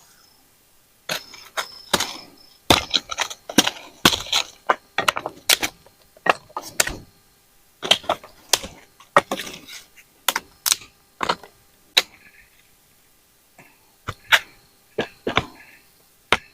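Irregular run of sharp knocks, cracks and snaps of wood being broken and chopped, several a second, thinning out after about twelve seconds.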